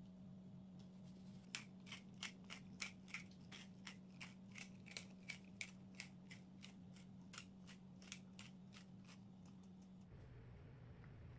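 Hand-twisted pepper mill grinding black pepper: a run of short, sharp crunching clicks, about three a second, for roughly seven seconds.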